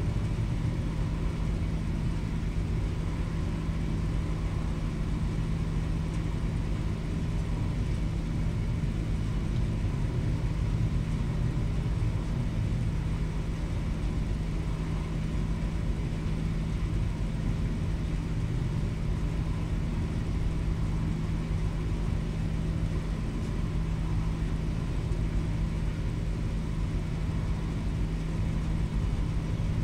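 Steady low drone of a ferry's engines and machinery heard on deck while under way: a constant deep hum with an even rumble beneath and a faint higher whine, unchanging throughout.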